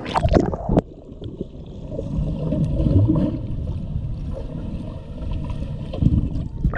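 Water splashing as the camera is plunged into a swimming pool, then the muffled low rumble of the water heard from underwater.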